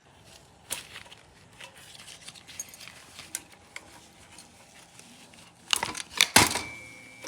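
Vintage typewriter's metal mechanism being handled: faint clicks and rustling, then a burst of loud metallic clacks about six seconds in, one of them leaving a short ringing tone.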